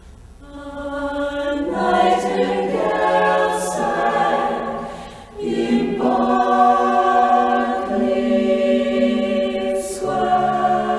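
An a cappella vocal group singing sustained close-harmony chords without clear words, starting soft and swelling within the first two seconds, dipping briefly about five seconds in, then holding long chords.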